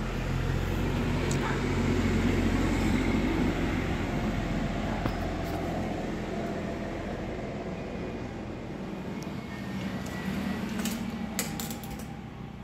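An engine running steadily with a low rumble, loudest in the first few seconds and easing off later, with a few light clicks over it.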